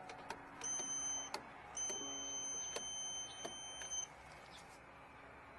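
Handheld voltage tester beeping as its tip is held to the breaker terminals of an electric boiler's control panel: a short high-pitched beep, then a longer steady one of about two seconds, the beeping signalling live voltage at the contact. Light clicks of the probe against the metal terminals come between.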